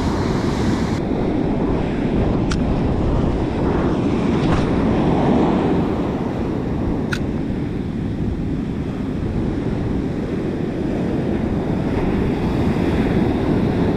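Ocean surf breaking and washing up a sandy beach, with wind buffeting the microphone. A few faint sharp ticks sound over it.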